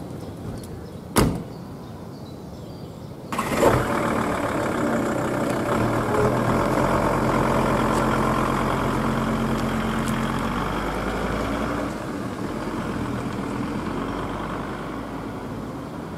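VW T4 campervan's driver door shutting with a single slam, then the engine starting about three seconds in and running as the van pulls away, fading gradually as it drives off.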